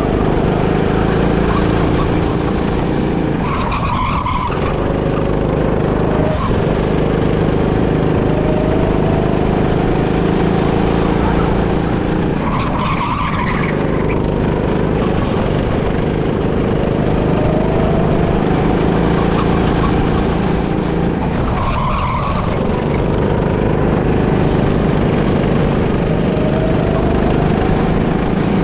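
Go-kart running hard around a tight track, heard onboard: a steady drive noise with a rising whine each time it accelerates out of a corner. Short tyre squeals three times, about nine seconds apart, as it slides through the corners.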